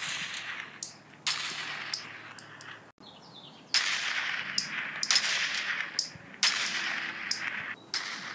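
A string of toy-gun shot sounds: about a dozen sharp bangs, each trailing off in a hiss over about a second, some in quick pairs, with a short lull near the middle.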